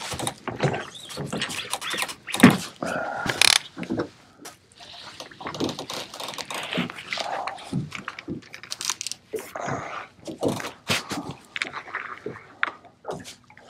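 Irregular knocks, scrapes and clicks of a sea-fishing boat rod being lifted and its reel wound in, the rod bent under the weight of something on the line.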